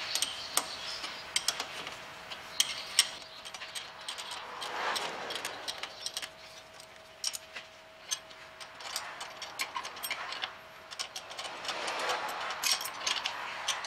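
Spanner clicking and clinking in quick runs as a rear brake caliper's mounting bolts are tightened, with a faint steady whine behind it for most of the time.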